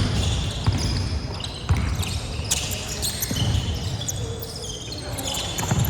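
Live basketball play on an indoor court: many short, high sneaker squeaks on the floor and a ball thudding as it bounces.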